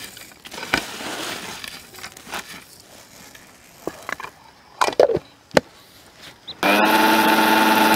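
Roasted whole spices rattle as they pour into a stainless steel mixer-grinder jar, then a few sharp knocks. About two-thirds of the way in the electric mixer grinder's motor starts suddenly and runs loud and steady with a whine, grinding the whole spices into masala powder.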